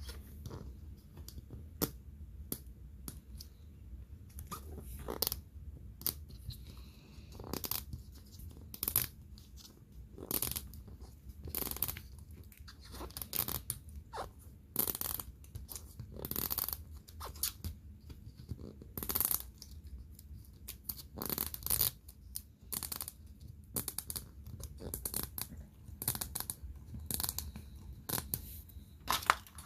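Small plastic toy packaging being handled and torn open: irregular crinkling, tearing and clicking.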